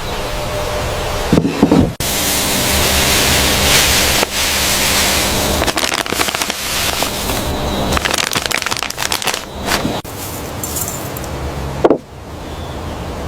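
Pakoras deep-frying in hot oil, a steady sizzle full of crackling. The sound breaks off sharply about two seconds in and again near the end.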